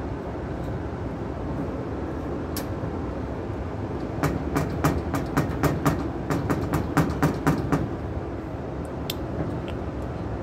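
2012 Carrier gas furnace's blower running steadily after the burners and inducer motor have shut off, as the fan runs on to the end of the heat cycle. A fast, uneven run of sharp clicks sounds from about four seconds in to about eight seconds in, with single clicks before and after.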